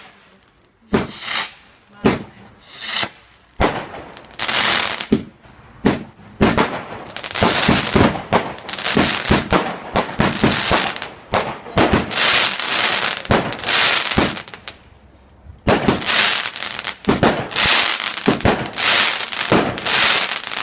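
Fireworks going off: a few separate bangs at first, then long stretches of rapid bangs and crackling, with a short lull about three quarters of the way through.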